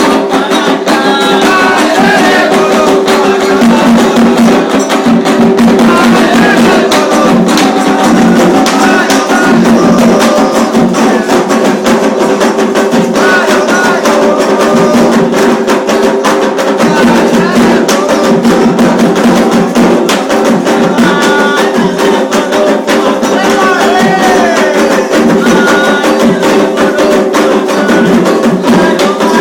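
Candomblé ritual drumming on hand drums with a struck percussion timeline, and voices singing and calling over it throughout.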